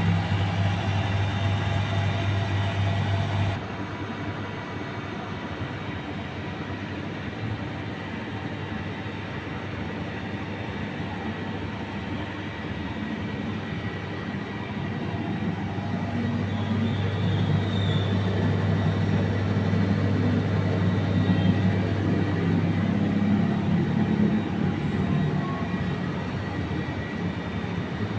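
Steady low machine hum with rumbling noise, which drops suddenly about three and a half seconds in and grows louder again in the second half.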